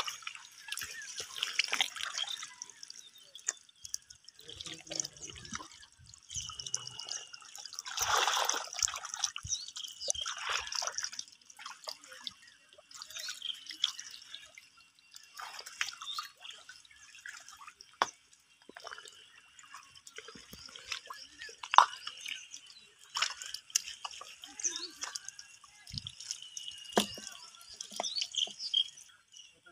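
Shallow muddy water and wet mud being stirred: irregular splashes, squelches and drip-like plops, with the biggest splashes about eight and ten seconds in.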